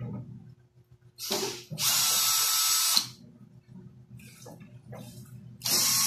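Power drill-driver unscrewing the screws of an amplifier's cover: two short runs of the motor, the first about two seconds in and lasting about a second, the second starting near the end.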